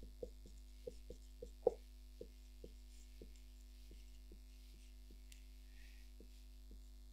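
Steady electrical mains hum with a string of soft ticks, about two a second, the loudest near two seconds in and growing fainter after that.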